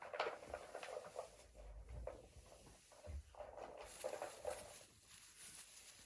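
Faint, irregular rustling with light taps and an occasional soft thump, like movement in straw bedding.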